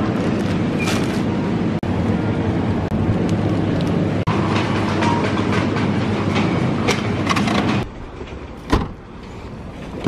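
Supermarket self-checkout ambience: a steady store hum, a couple of short scanner beeps and clicks from handling the groceries. Near the end it cuts to quieter outdoor sound with one sharp click.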